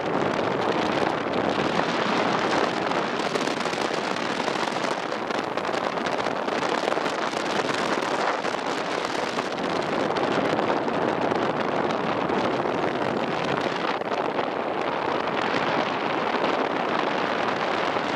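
Steady wind and road noise from a motorcycle riding on an unpaved dirt road: wind rushing over the microphone with the gritty crackle of tyres on loose surface.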